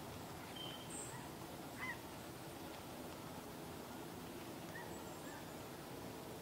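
Quiet wet-weather ambience: a steady faint hiss with a few brief high chirps of small birds, the sharpest about two seconds in.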